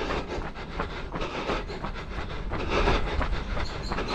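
A runner's footfalls and the jostling of a chest- or head-mounted action camera, in quick succession, over wind rumbling on its microphone while running.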